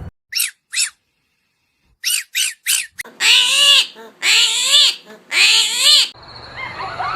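An animal calling: five short, high squeaks in two groups, then three longer, loud cries that rise and fall in pitch.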